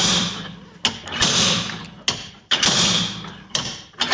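A 10-pound slide hammer being slammed repeatedly against its stop to pull a seized front wheel bearing out of the steering knuckle. Each blow is a heavy metallic clank that rings on after it, coming about once every second and a quarter, with lighter knocks in between.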